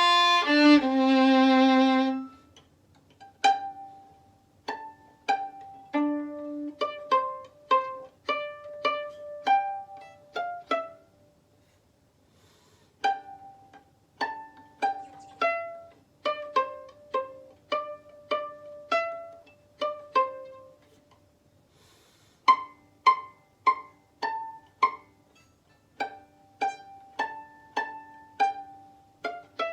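Solo violin: a bowed phrase ends about two seconds in, then a gentle melody is played pizzicato, plucked notes in short phrases with brief pauses between them.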